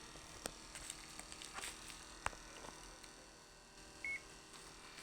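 Digital multimeter giving one short, high beep about four seconds in, after a few faint clicks of the meter being handled.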